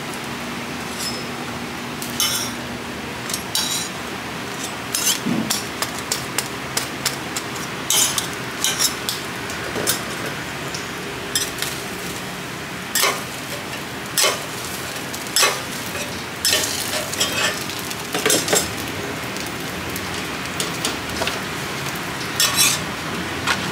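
Metal spatulas clinking and scraping on a steel flat-top griddle, striking in irregular sharp clicks as pancakes are turned and chopped into pieces, over a steady hiss of oil frying.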